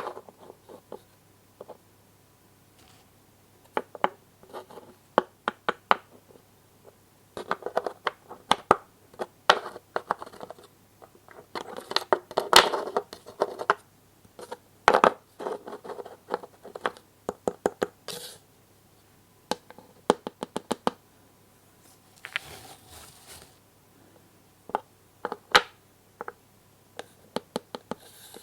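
Hands handling small wooden toy pieces: irregular clicks and taps, with a few stretches of scraping and rustling.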